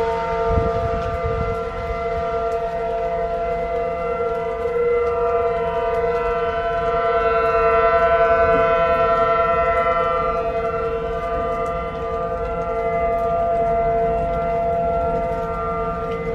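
Outdoor warning siren sounding a steady, unwavering tone for a severe-weather warning, its loudness slowly swelling and fading.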